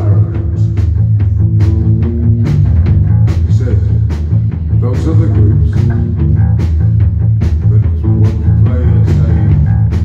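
A live rock band playing loudly, with drum kit, electric guitar and bass guitar over a steady beat.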